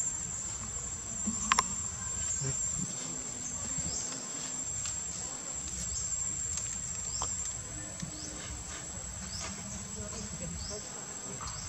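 Insects droning with one steady high-pitched tone, with short rising chirps repeating over it and a sharp click about a second and a half in.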